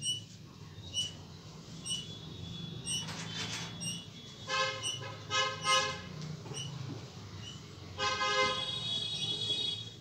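Vehicle horns sounding outside: three short toots about halfway through, then one long blast near the end, over a low steady hum. A short high-pitched blip repeats about once a second.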